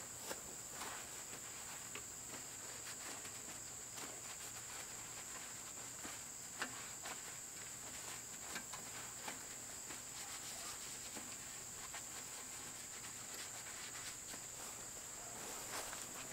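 Insects droning in a steady, high-pitched chorus, with a few faint scattered clicks.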